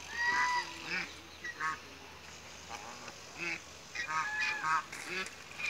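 Domestic geese honking: a longer held call near the start, single honks after it, then a quick run of honks about four seconds in.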